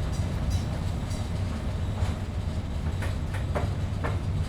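A 1951 PCC streetcar running on rails: a steady low rumble, with a short run of sharp clicks between about three and four seconds in.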